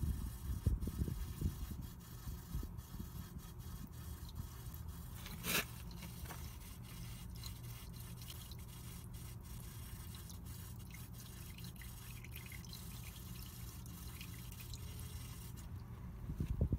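A thin stream of used engine oil trickling and dripping from the car's oil drain hole into a drain pan full of oil: the last of the oil draining out. A single sharp tick about five and a half seconds in.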